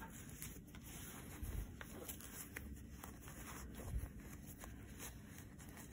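Faint rustling and rubbing of a handwoven purse and its fabric lining being handled and turned right side out, with soft low bumps about one and a half seconds and four seconds in.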